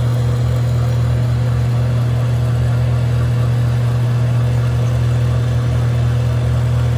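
Rockwell metal lathe running under power with a steady low hum while a long boring bar cuts out the bore of a spinning bearing block held in a steady rest.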